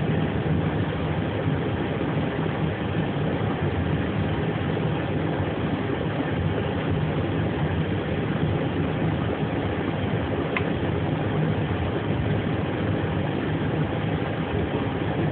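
Steady machinery drone and hiss with a low hum, heard aboard an Airbus airliner under tow, with one faint click about ten and a half seconds in.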